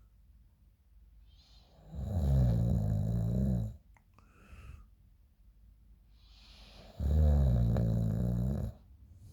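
A sleeping person snoring: two long, loud, low snores about five seconds apart, each lasting under two seconds, with soft breathing in between.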